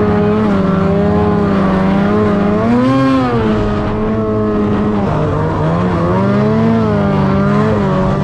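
Ski-Doo Summit X 800R E-TEC two-stroke twin snowmobile engine running steadily under way, its pitch wavering and swelling up briefly about three seconds in and again around six to seven seconds.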